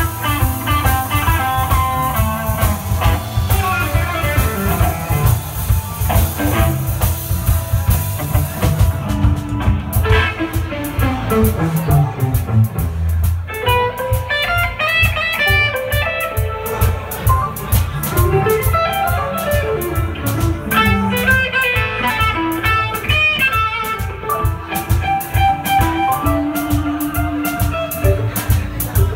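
Live blues band playing an instrumental passage: an electric guitar plays single-note lead lines with bent notes over a steady bass and drum kit groove.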